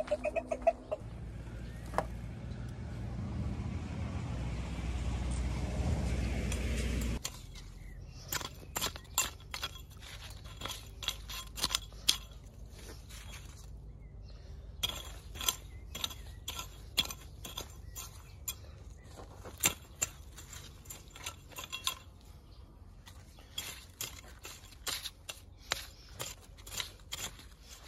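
Small hand hoe chopping into dry garden soil around bean plants: repeated sharp strikes in runs of a few seconds, with short pauses between runs. Before that, a rushing noise swells and cuts off suddenly about seven seconds in.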